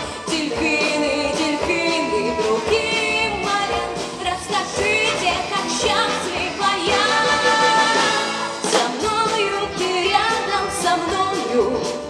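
A woman sings a slow pop song into a microphone, backed by a wind and brass dance band with saxophones, trumpets, trombones, tuba and drums.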